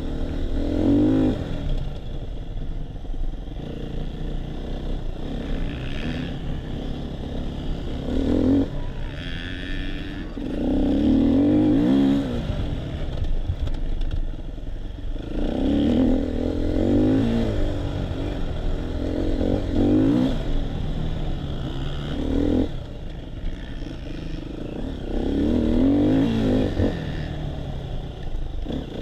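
Enduro dirt bike's engine, heard on board, repeatedly revving up through the gears and dropping back as it is ridden hard over rough grassland.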